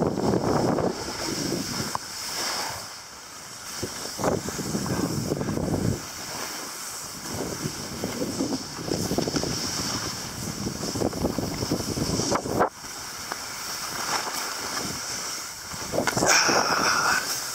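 Wind buffeting the microphone while skiing downhill, mixed with the hiss of skis running over snow, rising and falling in uneven surges.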